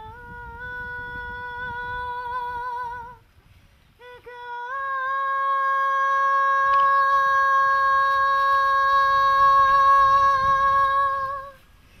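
A woman's voice singing two long held notes. The first wavers with vibrato and breaks off about three seconds in; the second starts with an upward scoop about a second later and is held steady for about seven seconds before stopping near the end.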